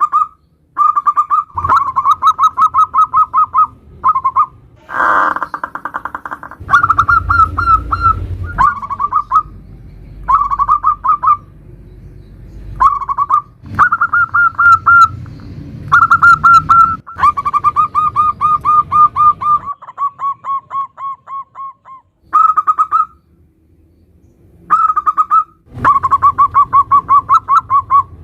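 Zebra doves (perkutut) cooing in rapid staccato 'nutut' runs of notes, bout after bout with short pauses between. A brief noisy burst comes about five seconds in.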